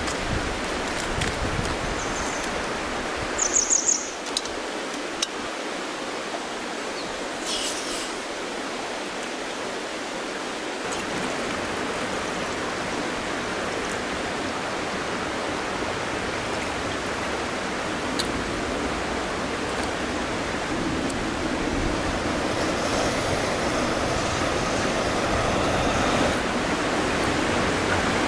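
Steady rushing noise with a short high chirp about three and a half seconds in; the noise grows a little fuller near the end.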